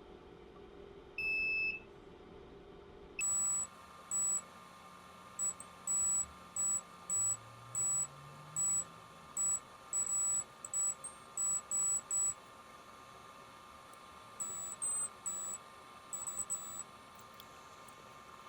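Multimeter in continuity-test mode beeping as the probes touch the FPC connector pins one by one: one lower beep first, then a quick irregular run of short high-pitched beeps, a pause, and a few fainter beeps near the end. Each beep signals that a pin is electrically connected to its trace.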